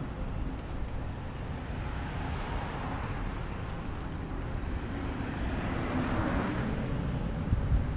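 Car passing on the road alongside, its tyre and engine noise swelling and fading about six seconds in, over a steady low rumble.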